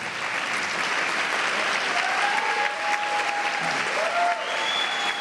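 Large theatre audience applauding, a dense, steady sound of many hands clapping.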